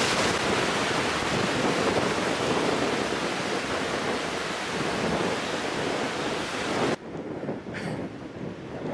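Sea surf washing over rocks, mixed with wind rushing on the microphone, as a steady noise. About seven seconds in it cuts off abruptly to a much quieter outdoor background.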